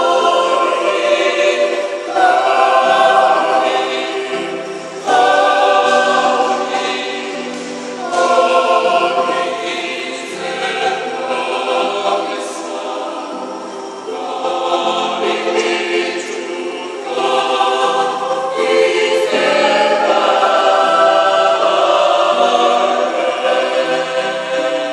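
Mixed choir of men's and women's voices singing a Christmas cantata, in held chords that change every two to three seconds.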